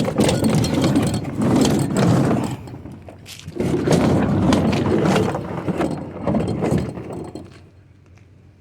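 Metal scrap clattering and scraping as pieces are handled and stood up, a dense run of knocks and rattles that dies away about seven and a half seconds in.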